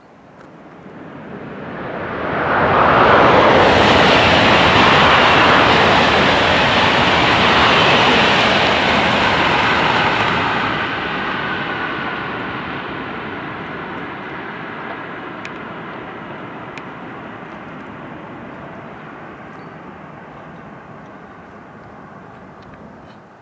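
Loud rushing noise of a vehicle passing unseen. It swells over about three seconds, holds for several seconds, then fades slowly away.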